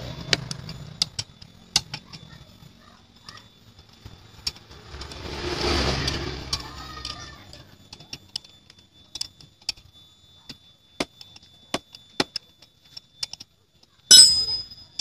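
Wrenches clinking on the cylinder studs of a Vespa PX engine during teardown: scattered sharp metallic clicks. A passing vehicle swells and fades about five to seven seconds in, and a loud ringing metal clang comes near the end.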